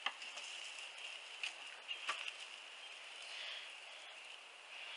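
Faint steady outdoor ambience of insects droning, with a few light knocks of footsteps on a wooden boardwalk.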